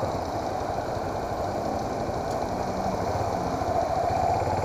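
Motorcycle engine idling steadily while the bike waits at a red light.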